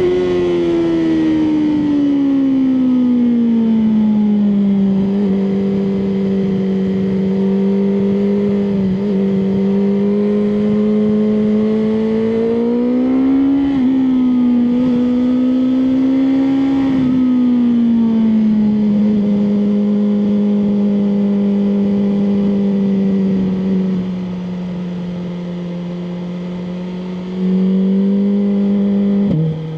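BMW M1000R Competition's inline-four engine under way at a steady cruise. Its note falls in the first few seconds, rises briefly in the middle and eases back, turns quieter about four-fifths of the way through, then picks up again just before the end.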